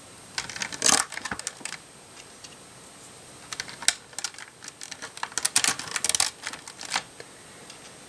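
LEGO plastic flat tiles clicking and tapping as they are pressed down onto the studs, in two spells of quick clicks, the first about a second in, the second from about three and a half to seven seconds in.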